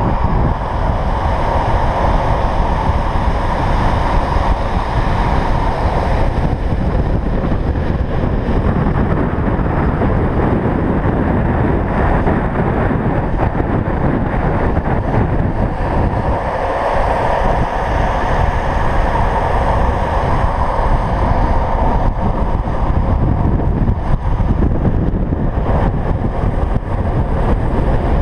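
Wind blasting over a moving camera's microphone at downhill speed, with the steady roar of longboard wheels rolling on asphalt beneath it.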